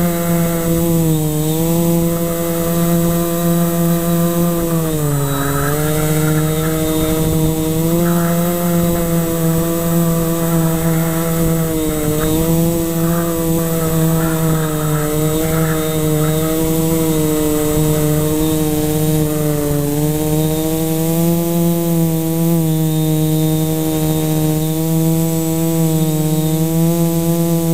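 Lumenier QAV540G quadcopter's four electric motors and propellers buzzing in flight, heard from the GoPro on board. The pitch wavers up and down as the throttle changes, dropping briefly about five seconds in.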